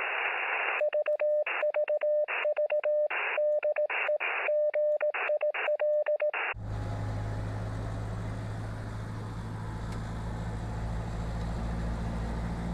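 Morse code on a radio: one steady-pitched tone keyed in dots and dashes, each element coming with a band of receiver hiss, stopping abruptly about six and a half seconds in. It is followed by the steady low hum and road noise of a Toyota Land Cruiser LJ70 driving, heard from inside.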